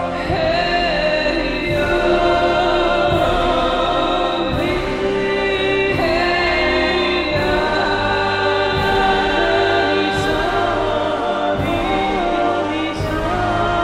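Background choral music: a choir singing long held notes over a steady beat.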